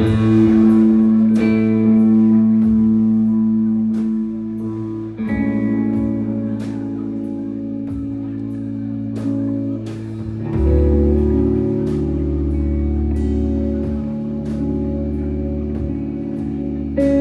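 Live rock band playing a slow song: electric guitar chords ringing out over a steady ticking beat, with a deep bass part coming in about ten seconds in.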